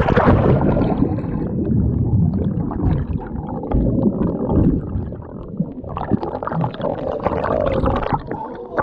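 A splash as an action camera plunges into a pond, then muffled underwater gurgling and bubbling with a low rumble. Fuller, brighter splashing returns near the end as the camera breaks the surface.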